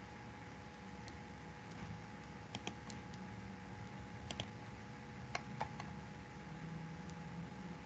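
Faint computer mouse and keyboard clicks, coming in small groups a second or two apart, over a faint steady hum.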